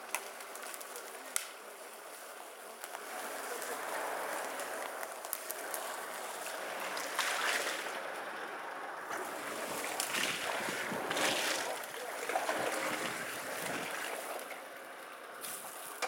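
Off-road 4x4 SUV driving through deep mud and water, its tyres churning and splashing the mud, with the engine running under load. The sound swells and fades, loudest in the second half.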